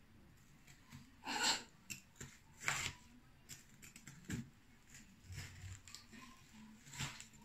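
Spoon scraping and knocking against frozen strawberries in a plastic tub, a handful of separate scrapes with the longest about a second in; the fruit is still frozen solid and won't come loose.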